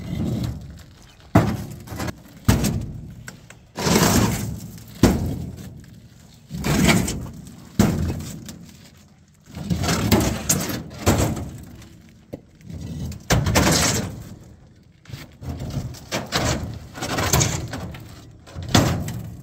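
Hollow concrete blocks being handled: repeated hard thuds and scrapes as blocks are set down on the pickup's steel bed and tailgate and knocked onto a stack, about one every second or so.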